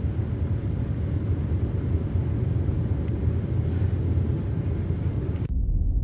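Steady low rumbling drone on a film soundtrack. Near the end it cuts off suddenly and gives way to a deeper, duller rumble.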